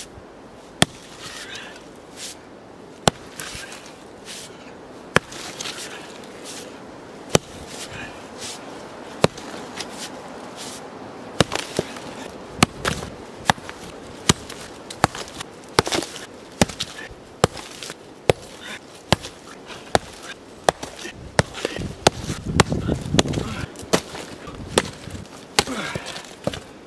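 Sledgehammer striking volcanic rock, sharp single blows about every two seconds at first, then faster and more irregular from about halfway. About four seconds before the end there is louder, heavier crunching of stone.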